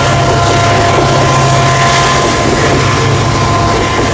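Three CC 202 diesel-electric locomotives in multiple hauling a loaded coal train past. The engines run with a steady low drone and a faint steady whine above it, over the broad noise of the moving train.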